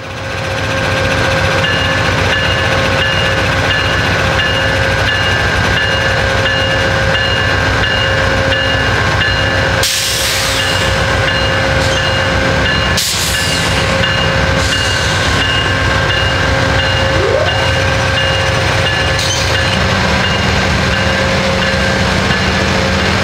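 Amtrak GE P42DC diesel-electric locomotives moving slowly at close range: a steady diesel drone with a steady whine over it, and two short hisses about ten and thirteen seconds in.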